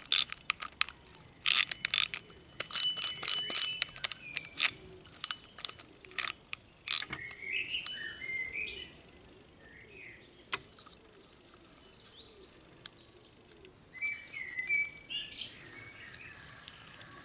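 Shakespeare Agility FD spinning reel being handled: a quick run of sharp plastic-and-metal clicks, some ringing briefly, as the spool and front drag knob are worked by hand. Later, birds chirp in the background.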